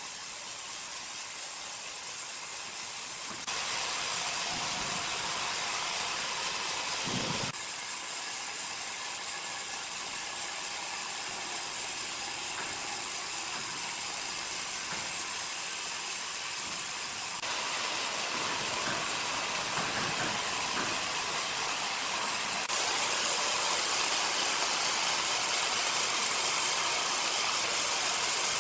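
Sawmill machinery running: a steady hissing noise with faint whining tones and occasional low rumbles, stepping abruptly louder or quieter several times.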